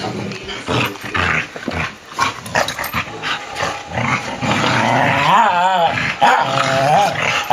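Dogs play-fighting: a Samoyed and a poodle cross growling at each other with scuffling, then high wavering whines about five seconds in and again near the end.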